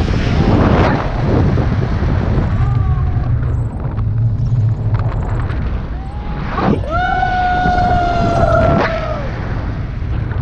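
Heavy wind buffeting on an action camera's microphone in paragliding flight, a steady low rumble. A person calls out briefly about two and a half seconds in, then gives one long held cry about seven seconds in.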